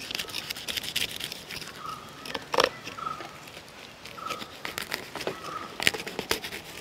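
A knife scraping the scales off a large tuna's skin: an irregular run of short scratchy clicks, a few of them louder.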